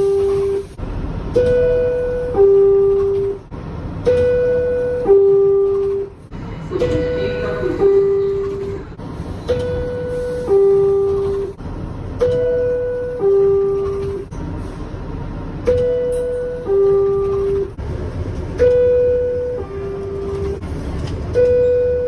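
R62A subway car door chime: a two-note descending ding-dong, a higher note then a lower one, sounded eight times a little under three seconds apart over the low rumble of the train. It is the warning that the doors are about to close.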